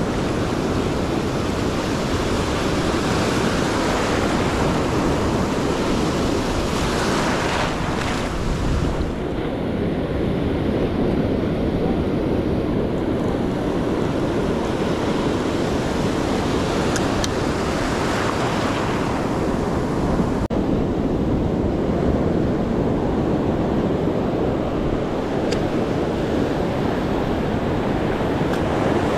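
Ocean surf breaking and washing up the shore, with wind buffeting the microphone. The wash swells louder twice, about a quarter of the way in and again past halfway.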